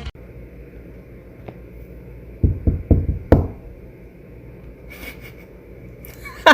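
Four dull knocks in quick succession, about two and a half to three and a half seconds in, over a steady low hiss.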